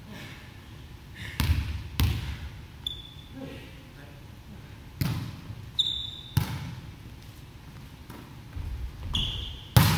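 Volleyball being struck and bouncing on a wooden gym floor: five sharp smacks a few seconds apart, each ringing briefly in the hall, with short high squeaks of sneakers on the floor in between.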